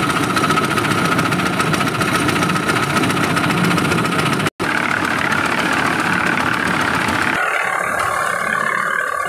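Small single-cylinder diesel engine running a concrete mixer, with a steady fast firing rhythm. There is a split-second break about four and a half seconds in, and near the end the engine gives way to music.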